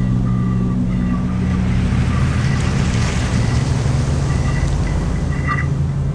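A low, steady drone under a wash of ocean surf that swells about two to three seconds in. Faint high held tones come and go above it.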